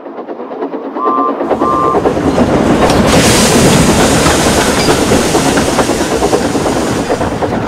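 Train running past, rattling and clattering as it builds up to its loudest in the middle, with two short whistle toots about a second in and a hiss joining about three seconds in.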